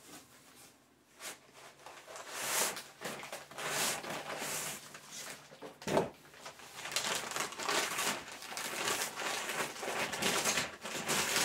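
Brown kraft packing paper crinkling and rustling in repeated bursts as it is pulled out of a cardboard box and unwrapped, with a single sharp knock about six seconds in.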